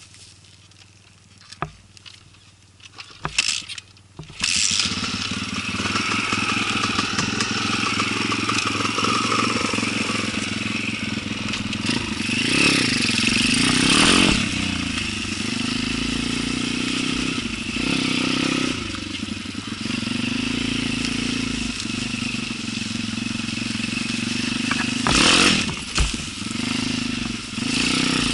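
Off-road motorcycle engine. After a few knocks it comes in abruptly about four seconds in, then runs, revving up harder twice.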